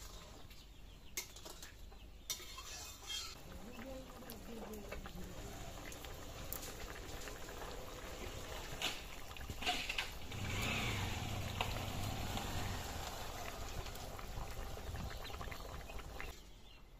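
Cooking at a wood-fired clay stove: a few sharp clinks and knocks of a metal spatula against an iron wok of simmering curry, over a steady low hiss, with animal calls in the background.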